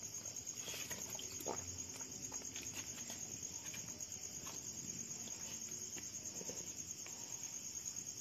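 Insects chirring steadily in a high-pitched, finely pulsed drone, with faint scattered clicks.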